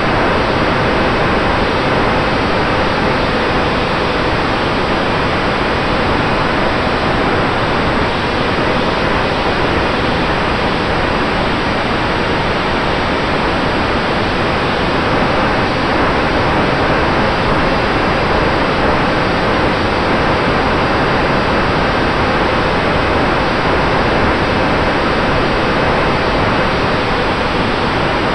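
Steady rush of airflow over the onboard camera of an Eachine Micro Skysurfer RC plane in flight, with a few faint steady tones from its electric motor and propeller underneath.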